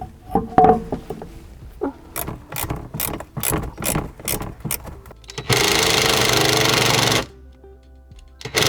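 Irregular ratcheting clicks on a rusted bolt, then a power tool on the bolt in two steady bursts of about two seconds each, the second starting near the end.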